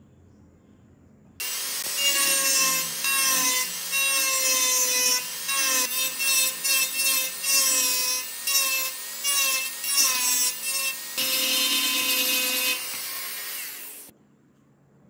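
DEKO handheld rotary tool with a small bit grinding into the wooden body, its motor whine dipping in pitch each time the bit bites into the wood. It starts suddenly about a second and a half in and whirs down near the end.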